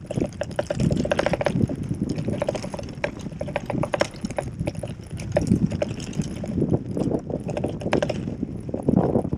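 Gravel bike riding over rough, bumpy grass: a continuous run of irregular rattles and knocks from the jolting bike, mixed with tyre noise.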